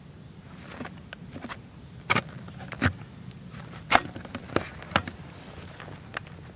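A handful of sharp, irregular clicks and knocks close by, the loudest about four seconds in, over a faint steady hiss.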